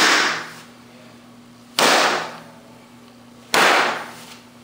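Open hand slapping a canvas iron palm sandbag three times, about two seconds apart, each a sharp slap that dies away quickly: iron palm conditioning strikes.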